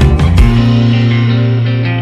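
Background music: drum hits stop about half a second in, and a held chord rings on, slowly fading.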